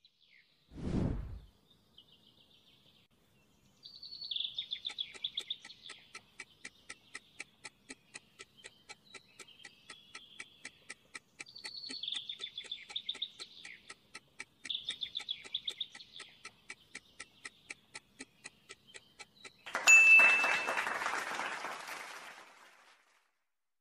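Quiz-show sound effects: a short whoosh about a second in, then a clock-like ticking about twice a second over birdsong chirps. Near the end comes a loud burst of noise that fades out over a few seconds.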